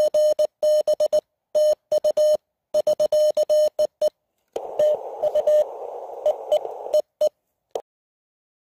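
Morse code (CW) tones from a (tr)uSDX QRP transceiver's speaker: a single steady tone keyed in dots and dashes, clean with silence between the elements at first. From about four and a half seconds in, the tones sound over a hiss of band noise through the receiver. The keying stops just before the end.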